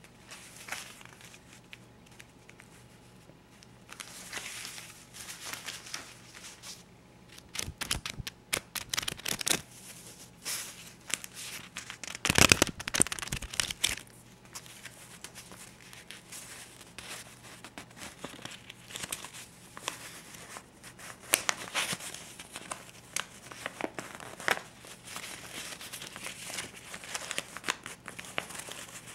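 US paper banknotes, a stack of $50 and $20 bills, being handled close up: crisp paper crinkling and rustling in irregular bursts, with a loud flurry of rustling about halfway through.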